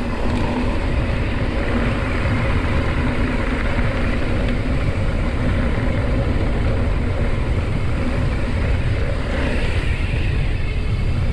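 Wind rushing over the microphone and mountain-bike tyres rolling on a sandy dirt track, a loud steady rumble.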